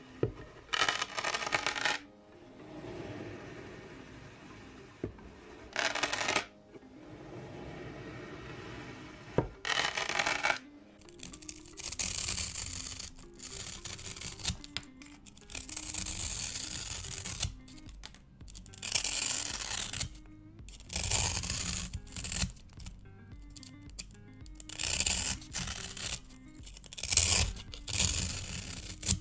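Soft background music throughout; a few short crisp bursts in the first ten seconds, then, from about eleven seconds in, a small blade repeatedly cutting and shaving a pink foam sponge block in scratchy, tearing strokes.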